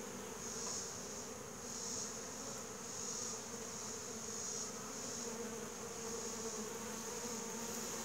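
Honey bees from a swarm buzzing in a steady low drone around the lure, with a high-pitched hiss in the background swelling and fading about once a second.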